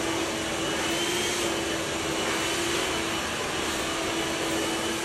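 A blower motor running steadily: a loud, even rushing of air over a steady low hum.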